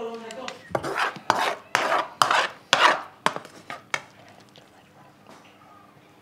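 A utensil scraping and stirring through a pot of chicken and onion stew: a quick run of rasping strokes, two or three a second, for about three seconds, then only faint clinks.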